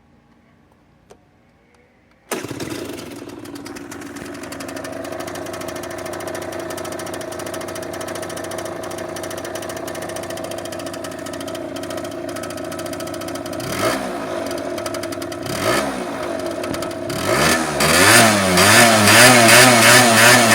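Piaggio New Typhoon scooter's two-stroke engine, bored to 70 cc with a DR Evo kit and breathing through a Tecnigas Silent Sport exhaust, starting suddenly about two seconds in and settling to a steady idle. Near the end it is blipped twice, then revved up and down repeatedly and louder.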